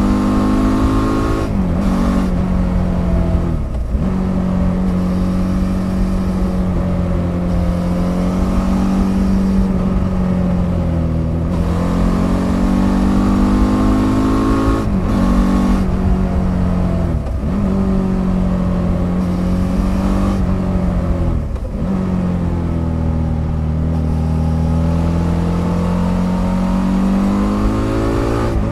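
Stock 2007 Suzuki DL650 V-Strom's 645 cc V-twin under way, its engine note climbing and falling with the throttle, broken by several quick dips where the pitch drops and climbs again. It is heard close up from under the pillion seat.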